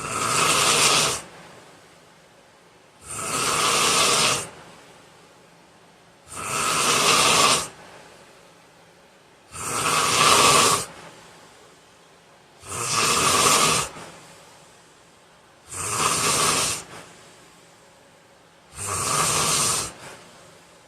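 A man snoring in his sleep, one loud rasping snore about every three seconds, each lasting just over a second, with quiet breathing between them, seven snores in all.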